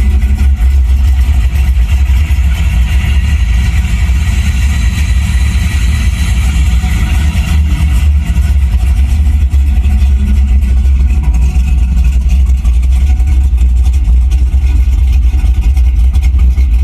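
Recording of a Pontiac Trans Am's engine running, played back loud through a truck's car-stereo speakers: a steady, heavy low rumble.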